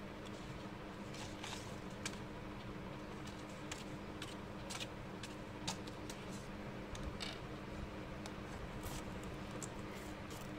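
Sheets of watercolor paper being handled and set down on a table: scattered soft rustles and light taps over a steady low hum.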